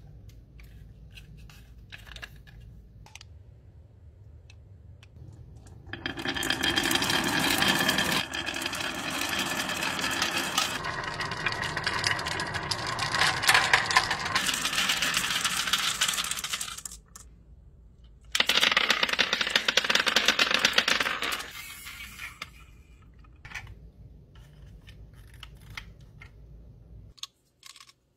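Glass marbles pouring out of a toy dump truck's tipped bed and clattering down a wavy wooden marble-run slope: a dense rattling clatter lasting about ten seconds, a short pause, then a second shorter burst that thins out to a few scattered clicks.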